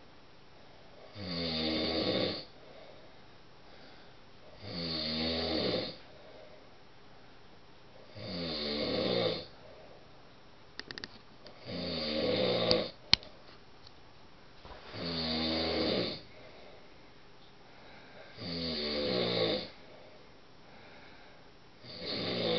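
A man snoring in his sleep, one snore lasting about a second roughly every three and a half seconds. A sharp click sounds about halfway through.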